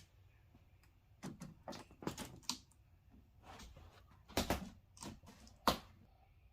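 Parts of a flat-screen TV being lifted and handled during disassembly: scattered clicks, light knocks and short scraping sounds, with two sharper knocks about four and a half and nearly six seconds in.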